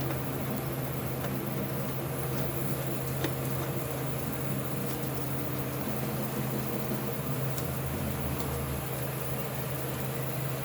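Steady low mechanical hum from a running motor or fan, with a few faint clicks.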